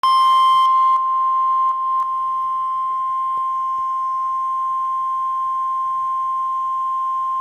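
NOAA Weather Radio warning alarm tone, a steady high-pitched tone of about 1050 Hz, played through a weather radio's speaker. It is a little louder, with extra higher tones, in the first second. The tone signals that a warning-level alert follows, here a high wind warning.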